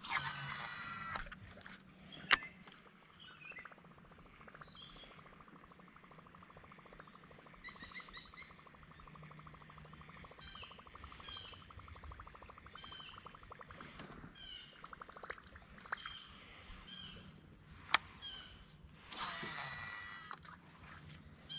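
Baitcasting reel whirring as the spool pays out line on a cast, with a falling whine, then a stretch of fast, fine ticking as the line is wound back in, and a second cast near the end. A few sharp clicks, and small birds chirping throughout.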